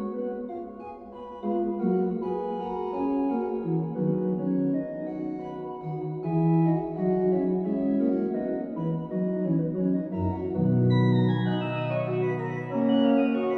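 Sampled Schnitger pipe organ from St. Michaelskerk, Zwolle, played through Hauptwerk, performing a lively baroque chaconne in several voices in A major. About ten seconds in, a low pedal note enters and is held almost to the end, under a falling run in the upper part.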